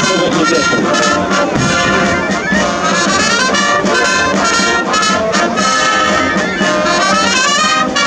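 Military brass band playing, a full ensemble sound with quick runs of notes.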